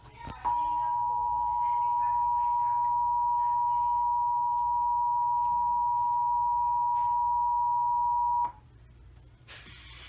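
Emergency Alert System attention signal: the steady two-tone alarm (853 and 960 Hz), heard through a TV's speaker, sounding for about eight seconds and cutting off sharply. A faint hiss follows near the end.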